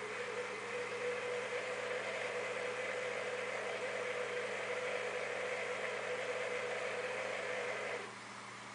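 Steady mechanical hum and whir of aquarium equipment that cuts off suddenly about eight seconds in, leaving a fainter hiss.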